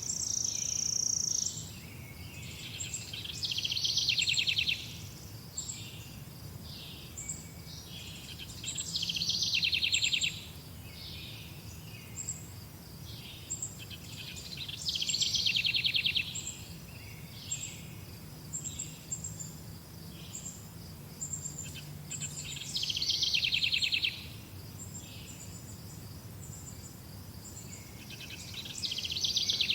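Songbird repeating a fast trilled song of about a second and a half, roughly every six seconds, with short high chirps in between over a faint low hum.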